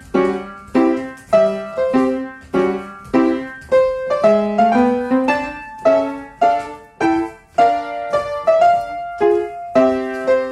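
Piano playing a lively ballet-class accompaniment, chords struck on an even beat of about two a second.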